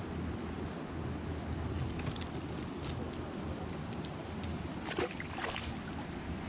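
Water lapping and sloshing against a kayak hull, with a few light clicks. About five seconds in there is a brief splash as the cast lure lands in the water.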